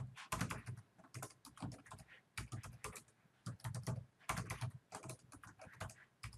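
Computer keyboard typing in quick runs of keystrokes, broken by short pauses.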